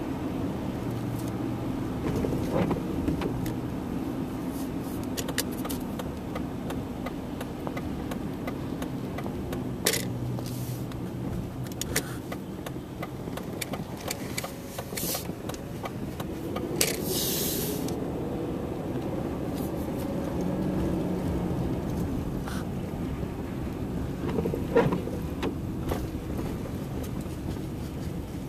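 Car running along a wet road, heard from inside the cabin: a steady low engine and tyre hum with scattered small clicks, and a brief hiss a little past halfway.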